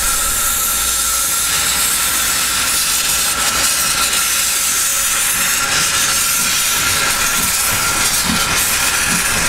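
Steady loud hiss of steam from the open cylinder drain cocks of a 0-6-0T saddle-tank steam locomotive as it moves slowly forward, with a thin steady high tone running under the hiss.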